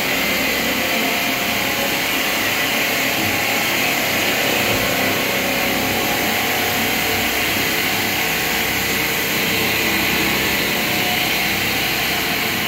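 Marble-cutting saw machinery running steadily, a continuous even noise with no breaks.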